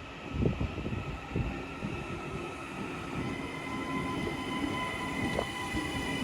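Two coupled Class 331 electric multiple units pulling into the station: a steady rumble with a high, even whine that comes in about three seconds in, growing gradually louder as the train draws in.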